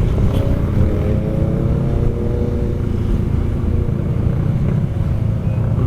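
Motorcycles and maxi-scooters riding in a group: a steady engine drone over a heavy low rumble, its pitch rising a little about half a second in and then holding.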